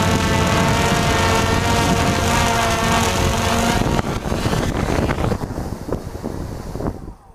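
RC Logger NovaX 350 quadcopter's electric motors and propellers whirring steadily close to the onboard camera, with wind on the microphone. About four seconds in it comes down into grass: the whir turns uneven with several knocks, falls away and stops near the end as the motors shut down after landing.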